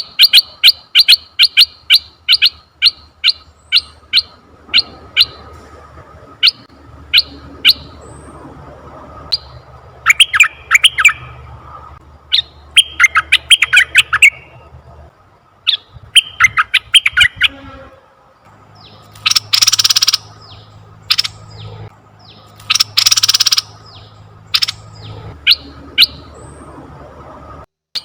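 Asian red-eyed bulbul calling: a fast run of short, sharp chirps that slows into spaced single notes, then bursts of quick chattering. Past the middle there are two harsh, hissing bursts, and at the very end another fast run of chirps begins.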